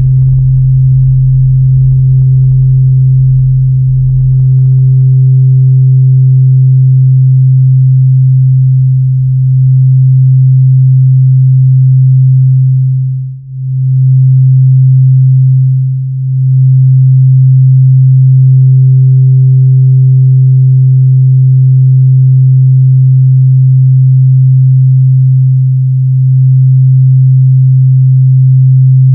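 Electronic drone music: a loud, steady low tone is held, with a fainter higher tone fading in and out above it. The sound dips briefly twice near the middle.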